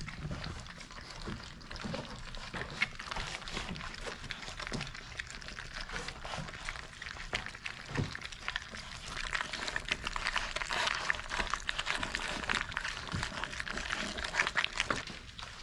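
A litter of puppies eating thick wet mush from a stainless steel bowl: a dense patter of wet smacking and lapping, busier in the last few seconds, with a couple of low knocks.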